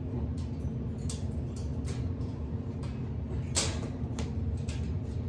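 Scattered light clicks and knocks, a louder knock about three and a half seconds in, over a steady low hum.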